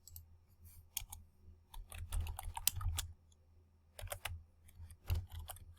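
Computer keyboard being typed on, with keystrokes in short irregular bursts and pauses between them, over a steady low hum.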